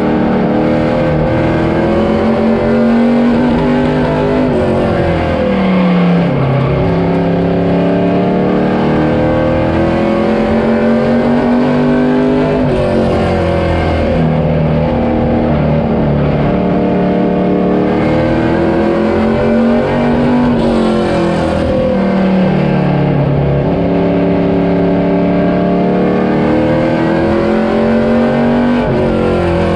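A vehicle engine running steadily close by. Its pitch drops about every eight seconds and climbs back up each time, as the vehicle slows and then accelerates again.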